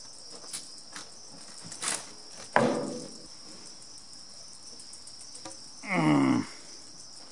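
Crickets chirping steadily in the background. About two and a half seconds in there is a sudden sharp knock, and near six seconds a short grunt-like vocal sound, falling in pitch.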